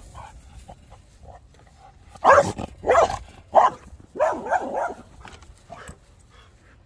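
A dog barking, a quick series of about four barks between two and five seconds in, the last one drawn out longer.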